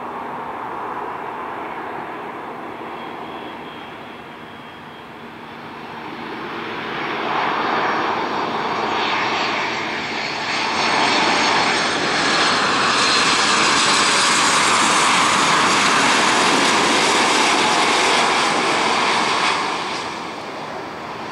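Boeing 737-800 jet engines on landing approach: a steady engine rush that grows louder as the airliner comes in low, stays loud for about eight seconds, then drops away near the end.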